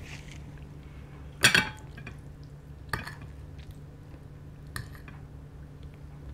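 Metal fork clinking and scraping against a ceramic pasta plate while twirling spaghetti: three short clinks about a second and a half apart, the first the loudest.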